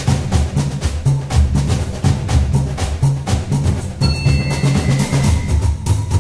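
Background music: a steady drum beat over a repeating bass line, with a few high held notes coming in about four seconds in.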